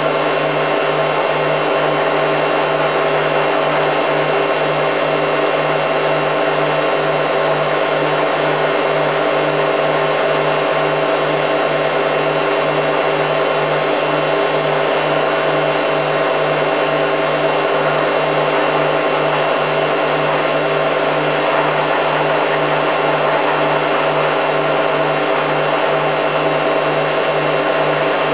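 Hoover Time Manager H130E washing machine spinning: its motor runs at a steady high speed with a constant whine and a low hum that throbs regularly.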